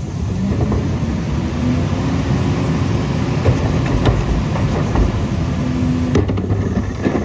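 Western Star garbage truck's diesel engine revved up to drive the Pak Mor rear loader's hydraulic packer as the packing blade sweeps through the hopper and compacts the load. A few sharp knocks from trash and carts are heard over it.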